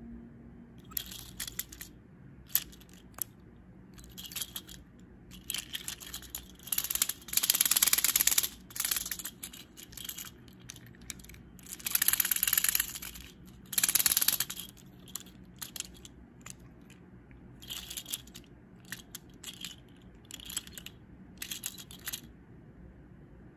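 Rustling and clicking handling noise as a wooden toy subway car is turned over in the hands. It comes in short bursts, with a few longer stretches of rubbing.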